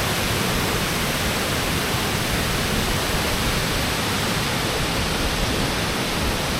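Water rushing steadily through a dam's outflow, an even unbroken noise of falling and flowing water.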